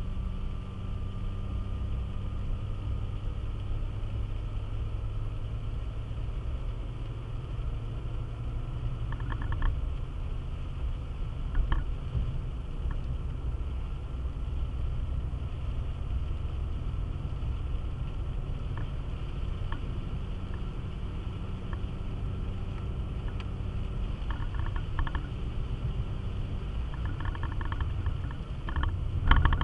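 Car driving on a wet road, heard inside the cabin: a steady low rumble of engine and tyres, with a few short clicks and ticks here and there, more of them near the end.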